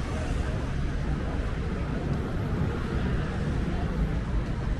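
City street ambience: a steady rumble of road traffic with no single sound standing out.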